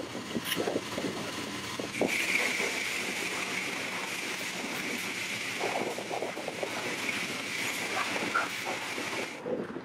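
Self-serve car wash pressure wand spraying water. A steady, loud hiss starts abruptly about two seconds in and cuts off sharply near the end, after a few knocks at the start.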